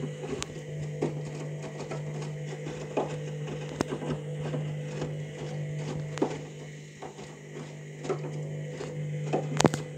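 Candy washing machine on its main wash: the motor hums steadily as it turns the drum, with the wet load tumbling and water sloshing, and occasional soft knocks.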